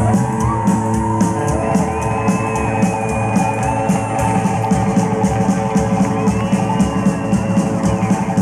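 Rockabilly band playing live in an instrumental break: electric guitar lead with held and bent notes over upright bass and a steady, even drum beat.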